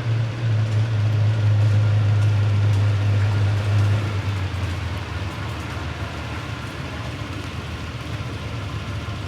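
Ferrari 275 GTB V12 engine running steadily: an even low rumble with a hiss over it, a little louder in the first few seconds.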